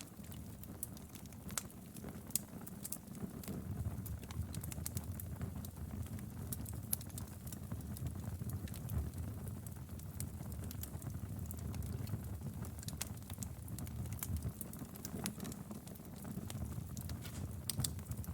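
Wood fire burning in a fireplace: irregular sharp pops and snaps of crackling firewood over a steady low rumble of the flames.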